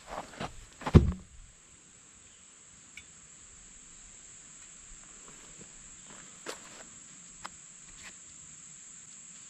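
Steady high-pitched insect chirring throughout. A few thumps in the first second, the loudest about a second in, are followed by scattered faint ticks.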